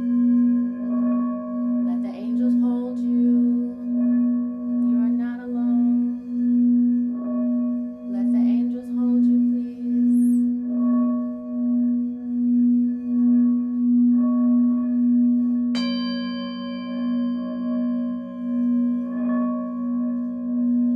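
A singing bowl sings a sustained low tone with a slow, regular pulsing throb, the way a bowl sounds when it is rimmed. About sixteen seconds in, a second bowl is struck and rings with a lower tone beneath it.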